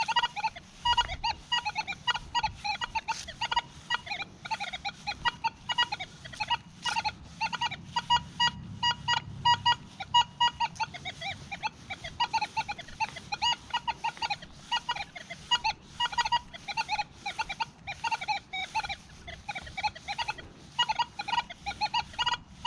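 Nokta Legend metal detector in its Gold Field program, sounding a rapid, irregular run of short beeps as the coil sweeps over foil- and junk-filled ground. It is too busy a signal to pick out single targets.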